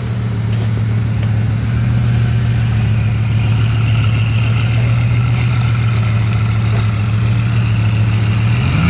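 Bugatti Veyron's quad-turbocharged 8.0-litre W16 engine idling steadily with a low note, which rises in pitch near the end.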